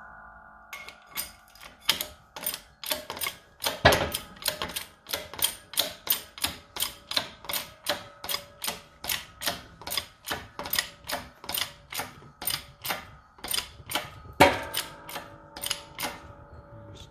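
A workshop press being worked to push a new spherical bearing into a coilover's eye: sharp metallic clicks at about two to three a second, with a couple of louder metallic clanks that ring on.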